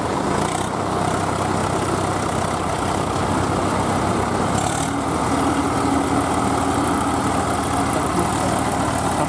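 Diesel tractor engines running steadily under load as the tractors churn through deep mud. A steady higher tone joins the engine sound about halfway through.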